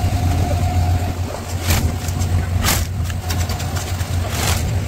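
Cement mixer's engine running steadily with a low hum, with a few sharp knocks over it.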